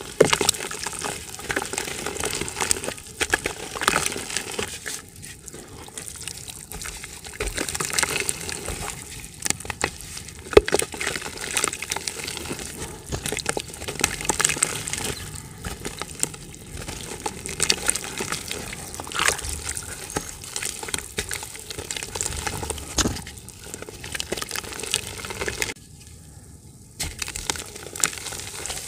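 Dry yellow dirt chunks crumbled and snapped apart by hand over a bucket of water: irregular crackling and crunching, with crumbs and powder dropping into the water. A brief pause near the end.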